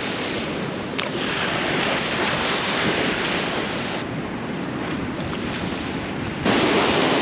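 Surf washing in and breaking, with wind on the microphone; a single short click about a second in, and the noise steps up louder near the end.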